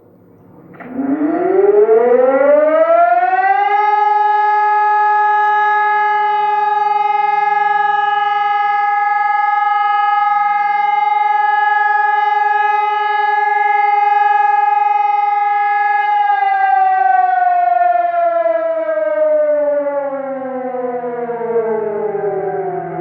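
Civil defense siren sounding a single wail: it winds up over about three seconds, holds one steady pitch for about twelve seconds, then slowly winds down. This new siren gives only the one wail rather than a repeated alarm signal.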